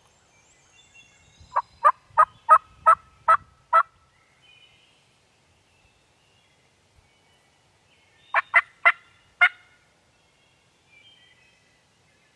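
Wild turkey gobblers gobbling from the roost in answer to an owl call: a loud gobble of about seven quick notes, then a shorter gobble of four notes a few seconds later.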